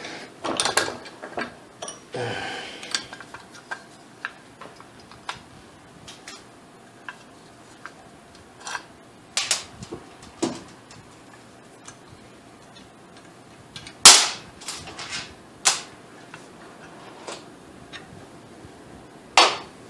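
AR-15 parts being handled and fitted, metal on metal: scattered clicks and clacks as the lubricated bolt carrier group goes into the upper receiver. There is a short scrape about two seconds in and a sharp metallic snap about fourteen seconds in, with another near the end.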